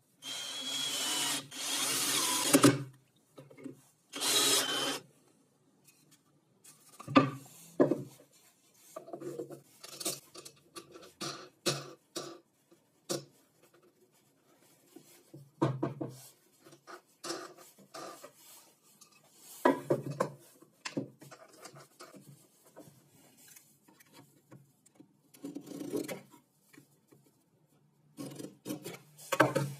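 Wood being rubbed or scraped in two longer bursts in the first five seconds, followed by irregular knocks and clatter of wooden pieces and tools being handled.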